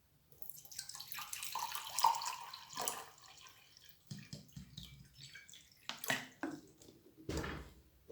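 Water pouring and splashing for about two and a half seconds, followed by a few knocks and handling noises of kitchen utensils.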